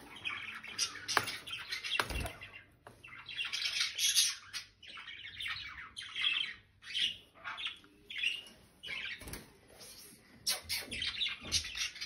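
Caged budgerigars chirping and chattering in repeated quick bursts, with a few sharp clicks among them.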